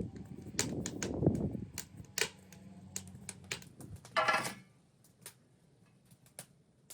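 Irregular sharp clicks and knocks, with dull thumps through the first two seconds and a brief pitched creak or call about four seconds in.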